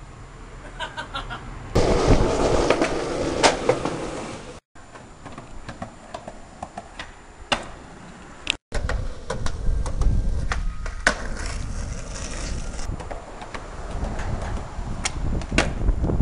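Skateboard wheels rolling on pavement, with several sharp clacks of the board popping and landing.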